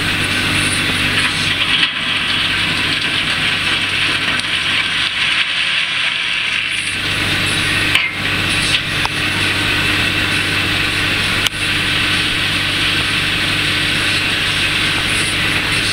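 Tractor engine running steadily while a stone picker's raised hopper tips out its load of rocks, with a continuous mechanical clatter. A couple of sharp knocks come about halfway and again a few seconds later.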